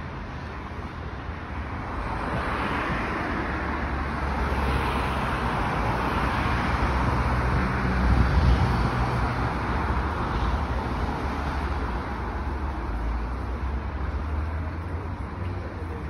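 Road traffic: a steady rumble and hiss that swells to a peak about halfway through, like a vehicle passing, then eases off.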